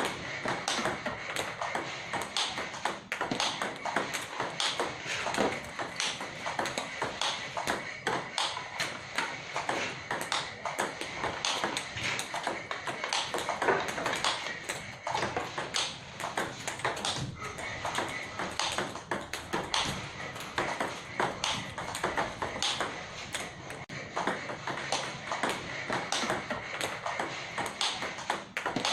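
Table tennis balls in a multiball drill: a quick, steady run of sharp clicks, several a second, as balls are fed, bounce on the table and are hit hard with the paddle.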